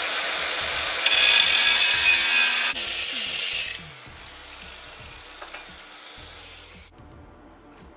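Cordless angle grinder with a cut-off wheel cutting through angle aluminum, louder during the cut from about a second in. It is released a little before the middle and winds down until it stops near the end.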